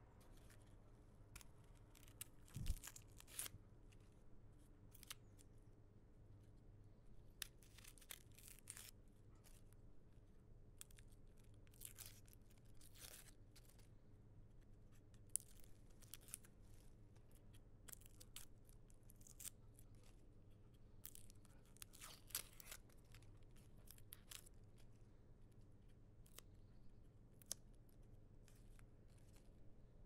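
Onions being peeled by hand: irregular dry crackling and tearing of the papery skin, with a soft thump about three seconds in. Underneath is a faint, steady low hum of room tone.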